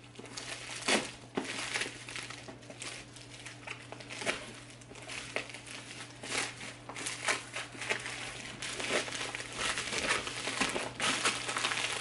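Thin plastic wrapping crinkling and crackling in irregular bursts as it is handled and pulled off a cardboard box, busier and louder in the second half.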